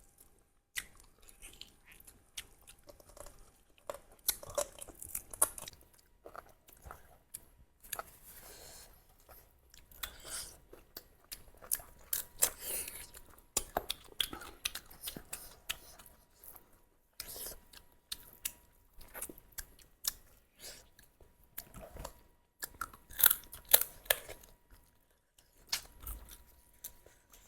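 Chewing and crunching while eating spicy duck curry: irregular wet, crackling mouth sounds and sharp crunches, with short pauses between bites.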